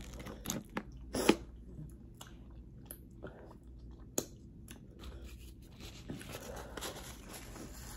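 Close-up eating sounds: a person chewing and crunching seafood boil, with a few sharp clicks, the loudest about a second in.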